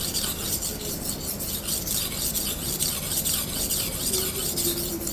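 Hard steel knife blade scraping back and forth in repeated strokes over a coarse silicon carbide sharpening stone, cutting in a fresh bevel.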